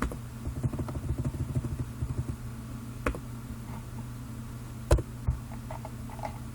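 Computer mouse clicking rapidly for about two seconds, then three single sharper clicks, over a steady low hum.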